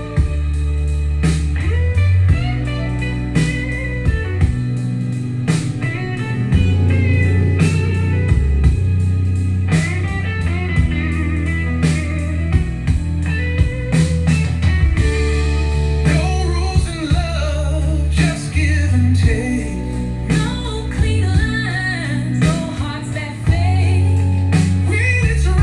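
Blues-rock song with guitar, bass, drums and singing, played back through a Yamaha AX-396 stereo amplifier and its speakers.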